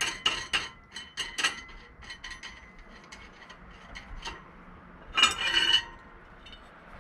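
Light metallic clicks and clinks of metal parts and tools being handled, with a short metallic clatter about five seconds in.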